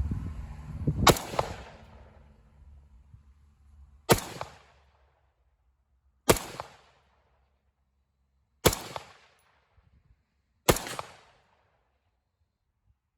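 Five single rifle shots, spaced about two to three seconds apart, each a sharp crack that trails off in a short echo. Some wind rumble on the microphone in the first second or two.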